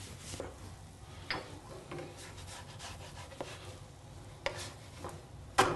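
Wooden spatula scraping and tapping against a nonstick frying pan as a pancake is loosened and lifted, with a sharper clack near the end.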